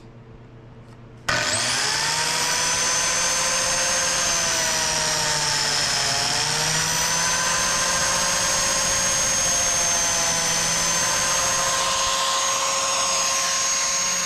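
Biscuit joiner's motor starting up about a second in with a rising whine, then running steadily at high speed. Its pitch sags briefly about halfway through as the blade cuts a biscuit slot in the board edge.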